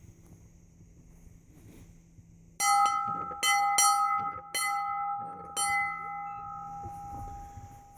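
A metal bell struck five times in about three seconds, starting a little after two and a half seconds in, its clear ringing tones slowly fading out after the last strike.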